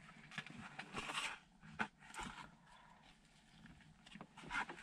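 Faint paper sandwich-wrapper rustling and a bite of a sandwich being chewed: a few short, soft crinkles, the clearest about a second in and again near the end.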